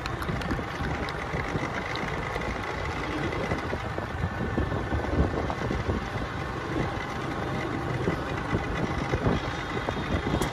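Runners' footfalls on a dirt track, many quick irregular steps over a steady low rumble.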